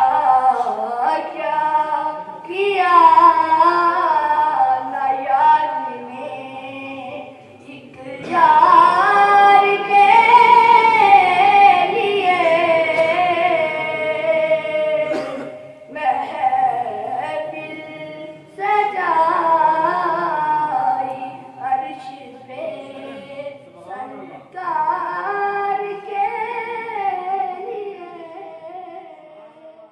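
A boy singing an Urdu naat into a microphone, in long phrases whose pitch wavers and glides, with short breaks between them.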